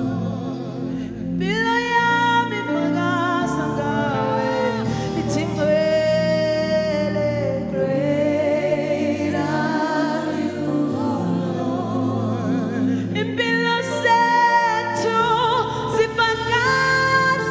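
Gospel music: a singer's long, wavering held notes over steady instrumental backing.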